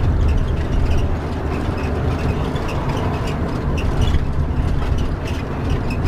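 Motorhome driving at road speed, heard from inside the cab: a steady low engine and road drone with small ticks and rattles over it.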